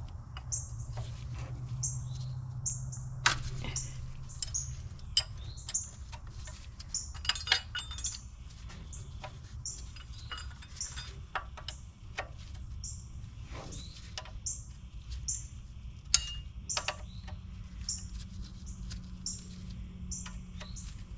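Metal hand tools and engine parts clicking and clinking in scattered knocks while parts are taken off a DeSoto Hemi engine, over a low steady hum. A short high chirp repeats about once a second throughout.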